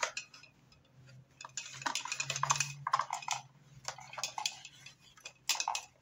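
A hard plastic baby toy being handled and turned around, with irregular clicking and clattering of its plastic parts in the hands and against the table.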